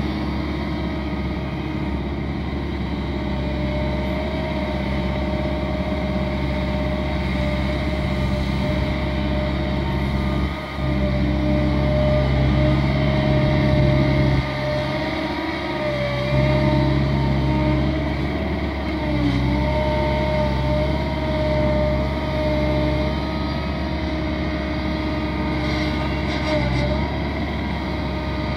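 Caterpillar M315D wheeled excavator's diesel engine running as the machine digs and swings, its low drone swelling and dropping every few seconds with the work, with a steady whine over it.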